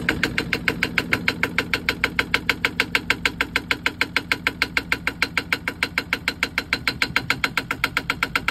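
Yanmar 1GM10 single-cylinder marine diesel idling just after starting, an even, rapid knock of about nine beats a second.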